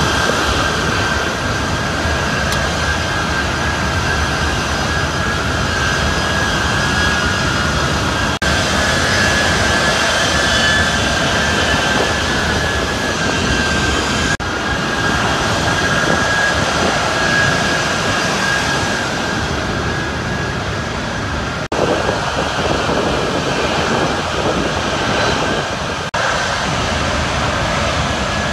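Jet aircraft engine noise: a loud, steady roar with a high whine running through it, broken by several abrupt cuts.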